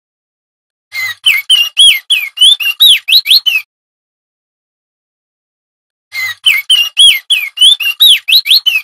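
Male opior jambul (crested darkeye) singing: two rapid phrases, each a string of about a dozen quick whistled notes that sweep up and down, lasting about three seconds, with a few seconds of silence between them.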